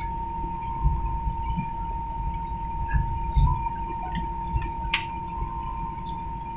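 Airliner cabin noise while taxiing: a low rumble with a steady high whine, broken by a few light clicks and one sharp click about five seconds in.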